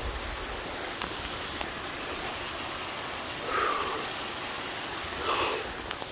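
Small rocky stream cascading over boulders, a steady rush of water, with two brief louder scuffs about halfway through and near the end.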